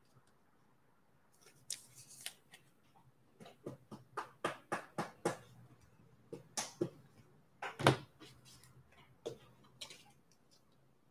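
Trading cards and pack wrappers handled and sorted by hand: an irregular string of soft clicks, flicks and rustles, with a sharper snap about eight seconds in.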